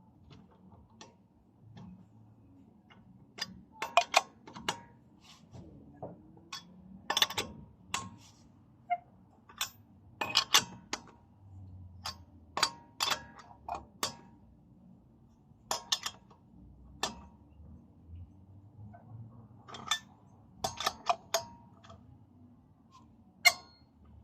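Metal tools and wheel hardware clinking and knocking irregularly, about twenty sharp strikes of varying loudness, during work refitting a road wheel after a brake pad change.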